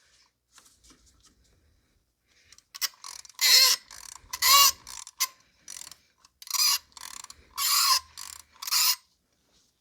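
Ratchet turning a spark plug socket, clicking in a series of short bursts as a tight spark plug is worked loose from the cylinder head of a BMW N55 inline-six.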